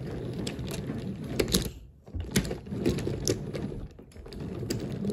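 Wooden toy train rolling along wooden track: a steady low rumble of wooden wheels and cars, with irregular clicks and clacks throughout. The rumble dips briefly about two seconds in and again near four seconds.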